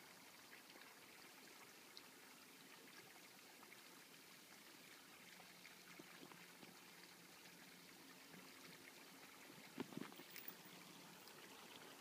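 Near silence: a faint, steady outdoor hiss, with a brief cluster of soft knocks or rustles about ten seconds in.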